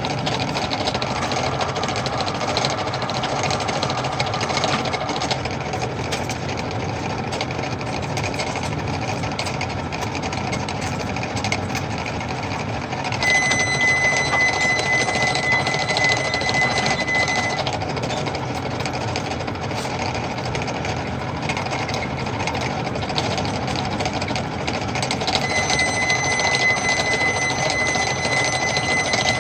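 Metal lathe running with a fast, steady rattle while cutting a square thread. Twice a high, steady squeal joins in: about 13 seconds in for about four seconds, and again near the end.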